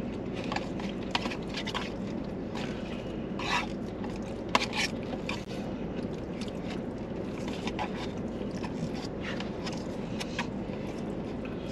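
Plastic forks scraping and clicking against the insides of paper takeout boxes, with chewing, in short irregular bursts. Under it runs the steady hum of the idling car and its fan.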